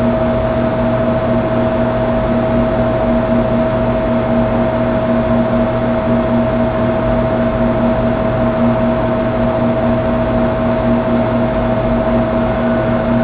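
A steady hum over a hiss, holding a constant high note and a lower note that flutters slightly.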